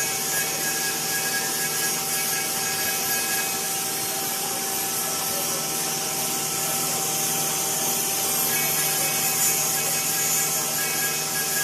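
Five-axis CNC wood router with an HSD spindle head running steadily, a constant whine of several tones over the noise of the cutter working wood.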